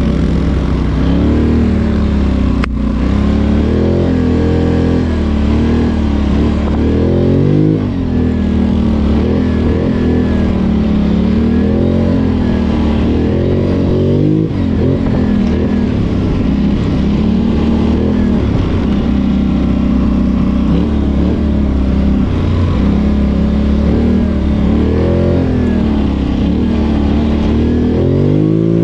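ATV engine revving up and down over and over under throttle while riding, its pitch rising and falling every second or two.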